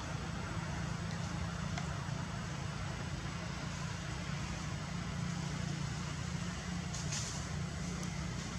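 Steady low rumble with an even hiss above it, with a few faint ticks and a brief brighter hiss about seven seconds in.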